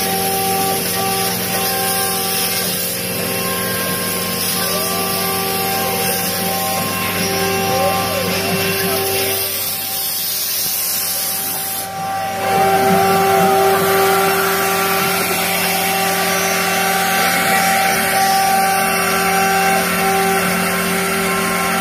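CNC router cutting a sign: the spindle runs at steady speed with a constant whine while the bit routes through the sheet with a dense cutting hiss. Brief whines glide up and down in pitch as the head changes direction. The cutting gets louder about twelve seconds in.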